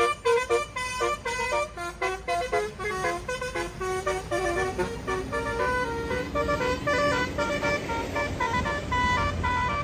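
Basuri-type telolet musical horn on a tourist bus playing a fast melody of short notes that change pitch every fraction of a second. A low rumble grows underneath from about halfway in.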